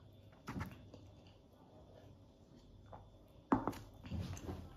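A quiet room, then a sharp knock about three and a half seconds in, followed by a few softer knocks and rustles, as a hand reaches across a wooden table toward the drink cup.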